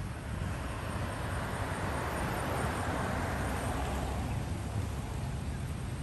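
Street traffic: a steady low rumble with a passing vehicle that swells to its loudest about halfway through, then eases off.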